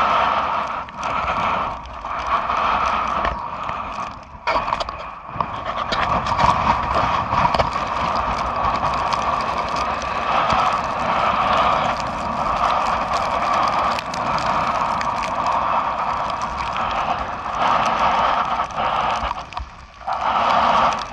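Gale-force wind buffeting a GoPro's microphone, a dense steady rushing noise that drops away briefly a few times in the first five seconds and again near the end.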